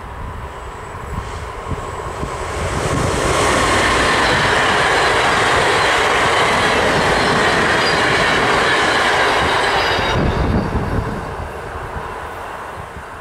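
Electric-hauled train of ICRm intercity coaches passing close by at speed: a rumble that builds over the first few seconds, stays loud for about six seconds with a thin high whine from the wheels, then dies away as the last coach goes by.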